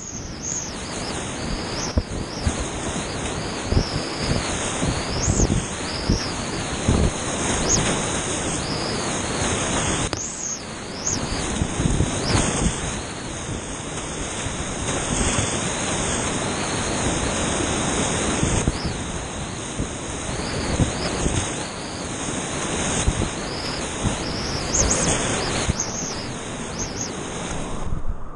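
Whitewater rapids on a steep mountain creek rushing loudly and steadily around a kayak running them, heard up close from the boat. Frequent irregular thumps of water splash against the boat and camera.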